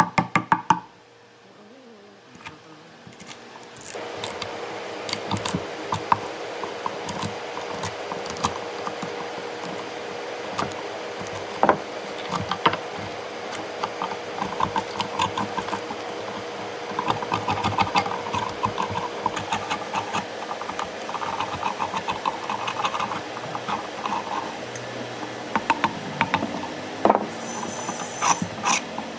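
Chisel work on an old plank, knocking and prying out the waste wood between saw cuts: irregular sharp knocks and cracks as wood chips split off and clatter. A steady hum sets in a few seconds in.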